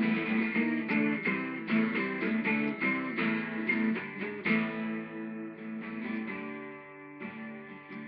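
Twelve-string acoustic guitar strummed in a rock rhythm, with chords ringing. The strumming thins out and gets quieter about five seconds in.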